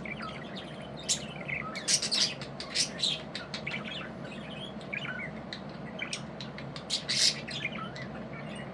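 Budgerigars chirping and squawking: a loose string of short, sharp chirps with a few louder squawks about two, three and seven seconds in.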